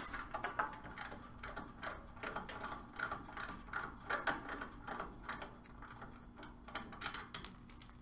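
Irregular metal clicks and clinks, several a second, as an adjustable wrench is fitted onto a brass refrigerant service valve. A sharper clink near the end rings briefly.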